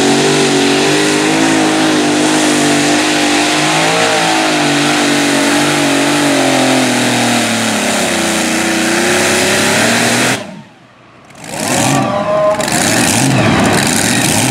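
Multi-engine super modified pulling tractor at full throttle under load, dragging the sled. The engine pitch climbs and sags as the load changes. About ten seconds in the sound cuts out for about a second, then the engines come back in.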